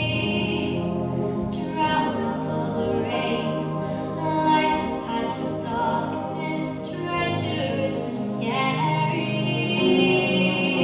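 A girl singing a solo song through a headset microphone, her sung phrases rising and falling over instrumental accompaniment.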